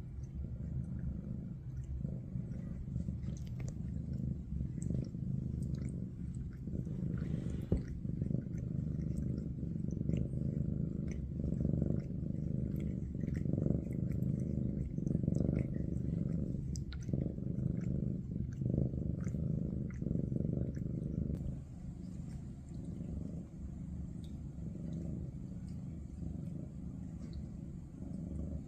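Maine Coon cat purring close to the microphone: a low rumble that swells and eases about once a second with its breathing, and grows quieter about two-thirds of the way through. There is a single sharp click about eight seconds in.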